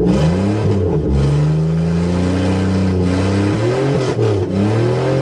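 Buick Regal's engine running and being revved, its pitch rising and falling several times. It runs after a no-start cured by cleaning corrosion off the engine computer's ground plate.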